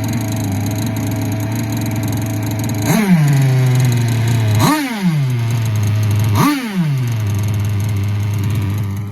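Small gas engine of an RC boat, a TK 27 Evo, idling steadily and then blipped three times about a second and a half apart, each rev climbing quickly and sinking back to idle. The sound falls away sharply near the end.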